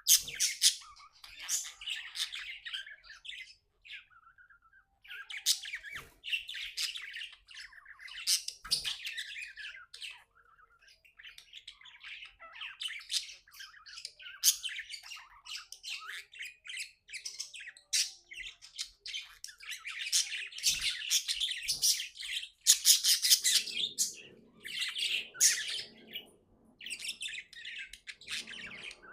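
Budgie chirping and warbling happily: a busy stream of short high chirps and squawks, breaking off briefly twice, about four and ten seconds in.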